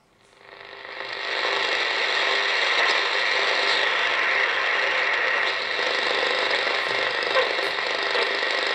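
Shortwave noise and signals from the AEG Telefunken E800/2 receiver's speaker as it is tuned quickly upward across the 17 MHz band. A dense, rattling hiss with faint steady tones in it swells up over the first second or so, then holds steady.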